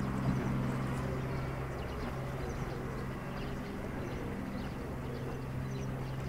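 A motor running with a steady low hum, over the rush of fast-flowing canal water.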